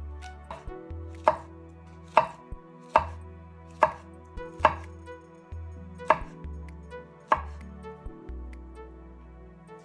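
Knife chopping fruit on a cutting board: about eight sharp chops roughly a second apart, with a short pause in the middle, stopping a couple of seconds before the end.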